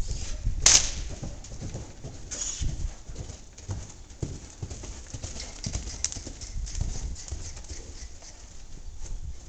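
Irregular hoofbeats of a horse running loose on soft dirt footing, dull thuds rather than ringing clops. A single sharp crack stands out about a second in.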